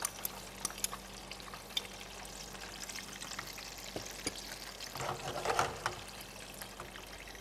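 Granulated sugar poured into a dry nonstick frying pan to start a caramel: a soft pattering of grains, with light scattered crackles and a brief swell of noise about five seconds in.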